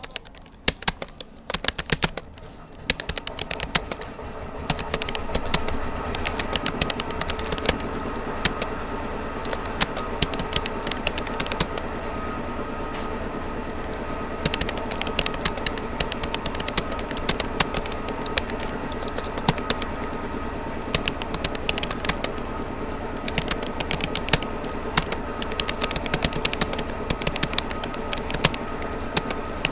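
Rapoo computer keyboard keys clicking in fast, irregular touch typing. A steady droning background with a fixed hum builds up over the first few seconds and carries on beneath the keystrokes.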